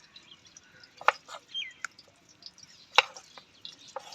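Knife cutting raw potatoes into large chunks: about half a dozen sharp, irregular clicks and knocks, the loudest about three seconds in.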